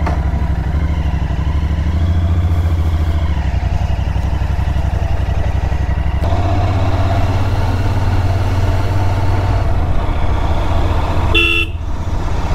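Royal Enfield Continental GT650's 648 cc parallel-twin engine running as the bike rides off slowly, its note stepping up about six seconds in. A short horn beep near the end.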